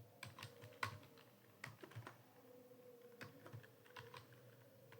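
Computer keyboard typing: a quiet, uneven run of single keystrokes, a few clicks a second with short pauses between them.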